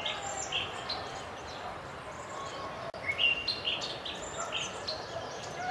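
Outdoor ambience: a steady background hiss with small birds chirping every now and then, in short high calls.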